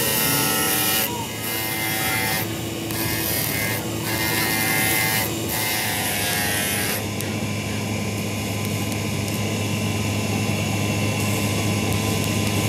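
Electric power tool running with a steady motor hum and a bright grinding hiss. The hiss breaks off briefly several times, then drops away about seven seconds in while the motor runs on.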